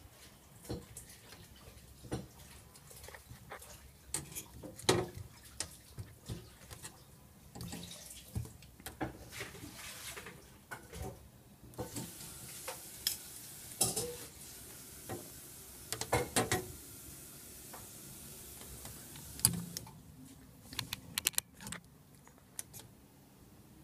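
Handling of a small plastic pneumatic filter-regulator and its push-in tube fittings: irregular clicks, taps and knocks of plastic parts, with a stretch of hiss in the middle.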